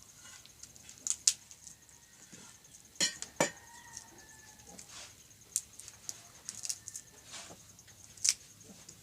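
Kitchenware being handled: dishes and utensils clinking and knocking against each other several times, one strike about three and a half seconds in ringing on briefly.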